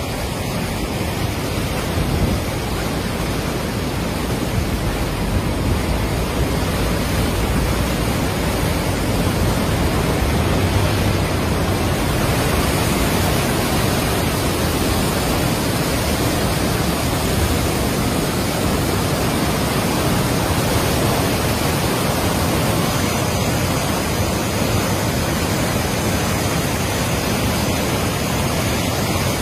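Floodwater of a swollen, muddy river rushing past in a loud, steady, unbroken torrent.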